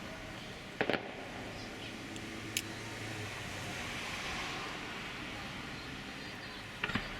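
Fireworks bursting: a sharp bang about a second in, a fainter crack a couple of seconds later, and a double bang near the end, over steady outdoor background noise.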